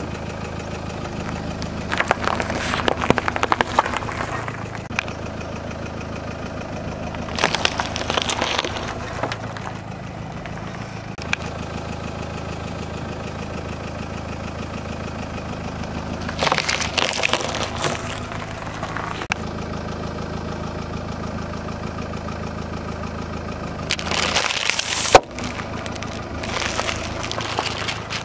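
A car engine idling steadily under four separate bursts of crunching and cracking as a tyre rolls slowly over and crushes vegetables (a long gourd and cucumbers) and a snack packet. The last burst ends in one sharp pop, the loudest sound.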